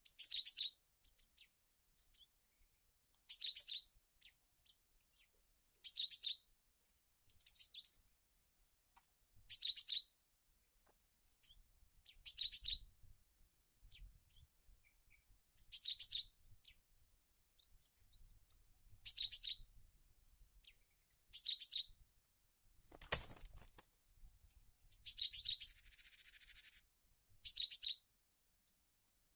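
Cinereous tit (gelatik batu) calling over and over: short, sharp, high phrases about every two seconds. There is a single sharp knock near the end, then a brief rustle.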